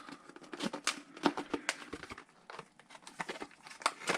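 Plastic packaging of an M.2 SSD being handled and opened: irregular crinkling with sharp clicks and crackles.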